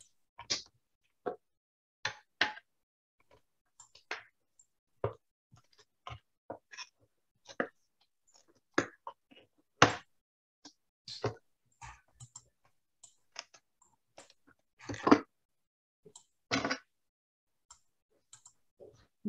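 Irregular clicks and taps of a computer mouse and keyboard being worked, heard over a video call, with two longer, louder knocks about three-quarters of the way through.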